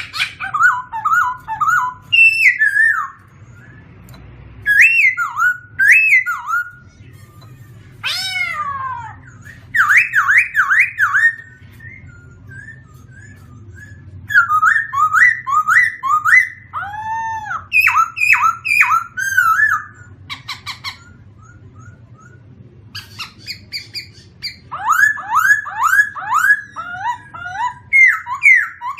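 A songbird singing, phrase after phrase of clear whistled notes, quick down-slurred trills and arched notes, with short pauses between phrases, over a faint steady low background hum.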